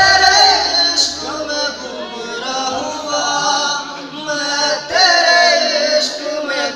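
Live singing from a stage: one voice sings a melody in long held notes that waver and bend, with louder phrases near the start and again about five seconds in.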